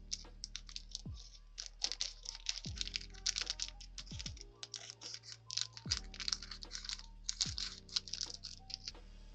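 Quick, crisp crackling and clicking of paper and stationery being handled and worked on a journal page, over background music.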